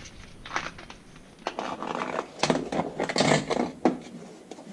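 Irregular scraping and rustling as a person shifts about on a mechanic's creeper and handles wiring under a vehicle, busiest in the second half.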